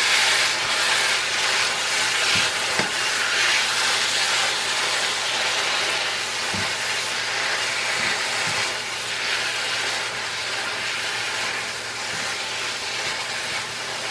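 Shredded beef in tomato sauce sizzling steadily in a frying pan as it is stirred, with a few light knocks of the spatula against the pan.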